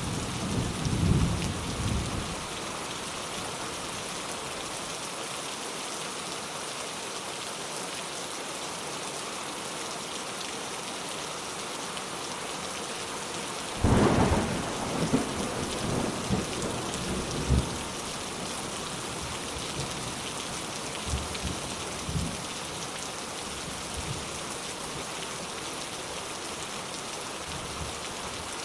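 Steady rainfall with thunder. A low rumble dies away in the first couple of seconds; about halfway through a sudden peal of thunder breaks in and rolls on in fading rumbles for several seconds, with fainter rumbles after.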